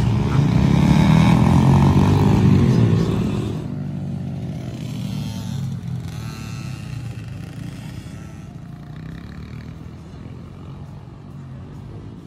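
Small kids' motocross bike, a Honda CRF110 with a four-stroke single-cylinder engine, revving hard as it rides close past, its pitch rising and falling. About three and a half seconds in it drops away to fainter dirt-bike engines that change pitch as they ride further off on the track, slowly fading.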